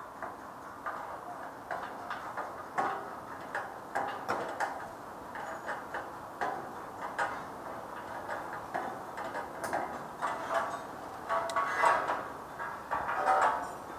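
Irregular metal clicks and knocks from hands-on steel connection work: tools and hardware striking steel beams, coming more often and louder near the end.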